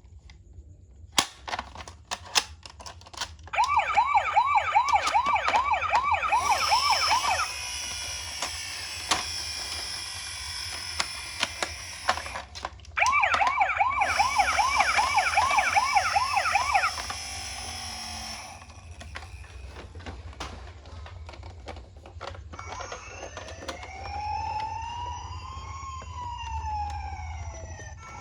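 Toy ambulance minicar's electronic siren. After a few sharp clicks, it gives a fast warbling yelp over a loud hiss, stops, and yelps again. Near the end it switches to a slow wail that rises and falls.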